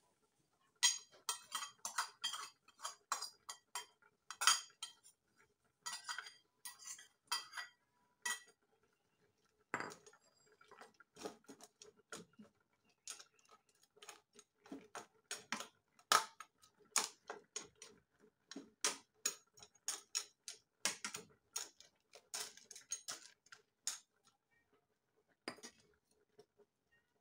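A spoon knocking and scraping against the side of a large aluminium cooking pot as soup is stirred: irregular clinks and knocks in quick runs, thinning out near the end.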